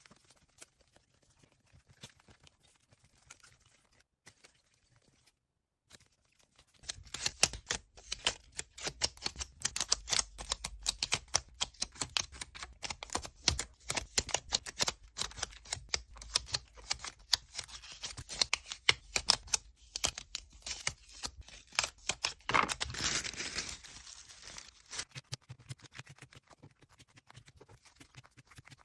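Hands unboxing card packaging: after several seconds of near quiet, dense irregular clicks, taps and crinkles of plastic and paper begin about seven seconds in. A louder rustling swish comes about two-thirds of the way through, and the sounds thin out near the end.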